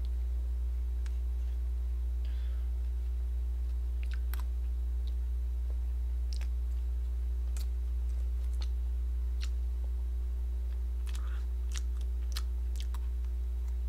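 Close-miked eating: scattered sharp clicks of a small utensil against a clear plastic cake container, with mouth and chewing sounds, over a steady low electrical hum that is the loudest thing throughout.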